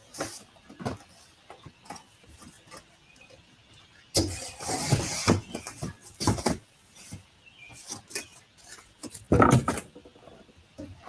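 Cardboard packaging and packing pieces being handled and pulled from a large shipping box: bursts of rustling and scraping with knocks and clicks, the loudest about four seconds in and again about nine seconds in.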